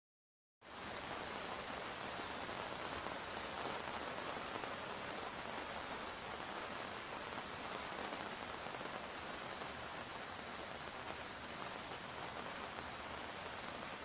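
Rain falling on an umbrella canopy: a steady, dense hiss of drops that starts about half a second in and holds at an even level.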